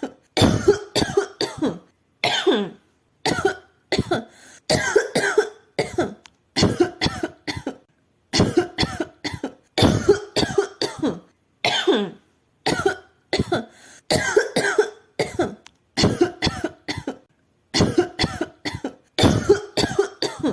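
A woman coughing over and over in short fits of a few coughs each, with brief pauses between the fits.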